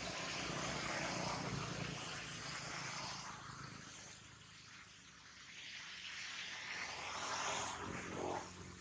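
Heavy rain falling, a steady rushing hiss that swells, eases about halfway through, then swells again.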